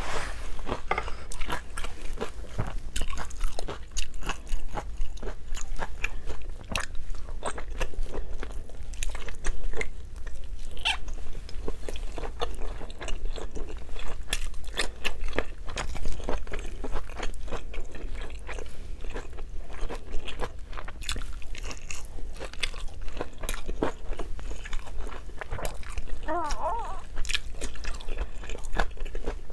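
Close-miked mouth sounds of a person chewing a mouthful of Bicol Express pork belly: steady wet chewing and lip-smacking with many small clicks. Near the end there is a brief hum from the eater.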